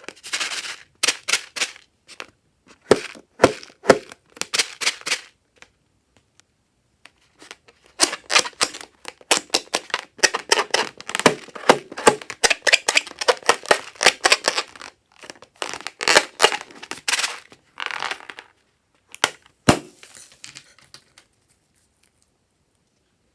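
Slime being squished and worked by hand: bursts of sticky, crackly popping clicks. It stops a few seconds before the end.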